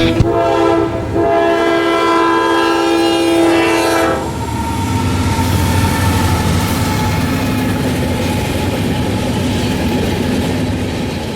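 Locomotive air horn sounding one held chord for about four seconds, then the steady rumble and wheel clatter of a passing train, starting to fade out at the very end.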